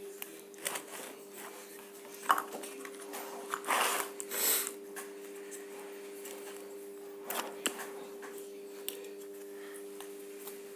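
Hands working paper medical tape around a bundle of copper wire: scattered clicks and taps, with two short rasping pulls of tape about four seconds in, over a steady low hum.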